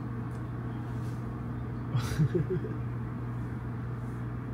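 Steady low machine hum with a faint even rushing noise. A short vocal sound comes about two seconds in.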